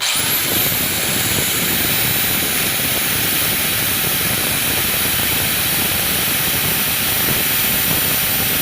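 Electric jackhammer-type rotary hammer drill running at full speed, its bit pressed hard against a watch. It starts abruptly with a quick rising motor whine, then runs loud and steady.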